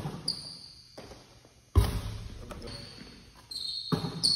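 A basketball bouncing on a hardwood gym floor: a few widely spaced bounces, each followed by a short echo, with brief high squeaks in between.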